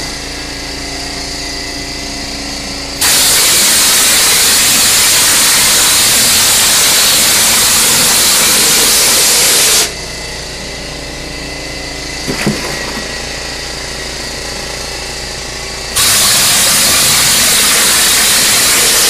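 Compressed air blasting through a Benron stucco hopper gun as it sprays mortar, a loud hiss lasting about seven seconds from about three seconds in and again for about three seconds near the end. Between sprays the air compressor runs with a steady hum, and there is a single knock about twelve seconds in.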